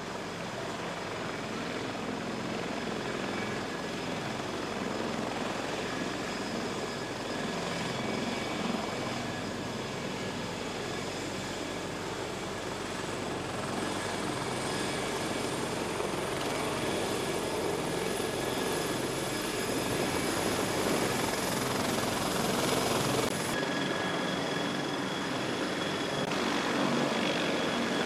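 CH-53K King Stallion heavy-lift helicopter running with its rotor turning, its three turboshaft engines giving a high whine over the rotor rush. About halfway through, a high whine climbs slowly in pitch, and a few seconds before the end the sound changes abruptly.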